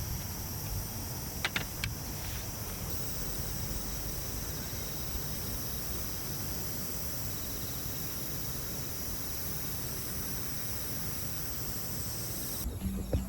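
Night insects, crickets, trilling steadily in several high-pitched layers over a low background rumble, cutting off abruptly near the end. A couple of brief clicks come about a second and a half in.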